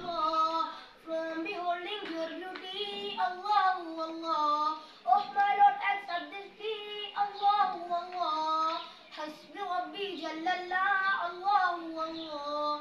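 A boy singing a nasheed solo, one voice in melodic phrases with long held notes and no instruments.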